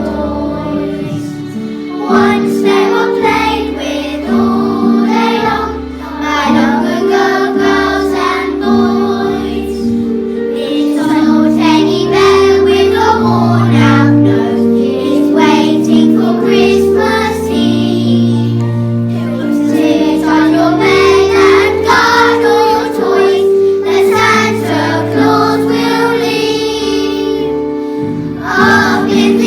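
A group of young children singing a song together over a sustained instrumental accompaniment with held chords and a bass line.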